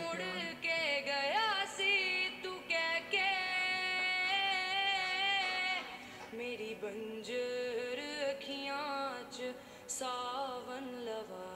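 A woman singing a slow Punjabi song, holding long notes with a wavering pitch; the singing gets softer about halfway through.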